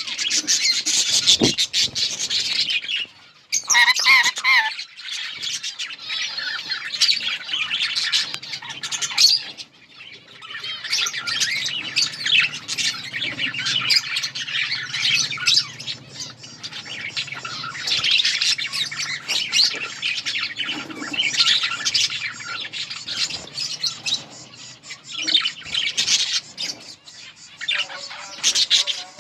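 A flock of budgerigars chattering and chirping together, a dense, continuous mix of many short, high calls and squawks with brief lulls.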